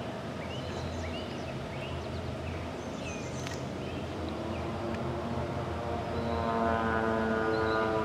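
Distant CSX freight locomotive sounding its air horn: a long steady blast that begins about halfway through, grows louder and stops near the end, over a low rumble from the approaching train. Birds chirp in the first half.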